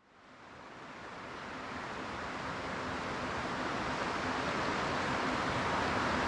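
Rushing river water, a steady even hiss that fades in over the first couple of seconds and then holds.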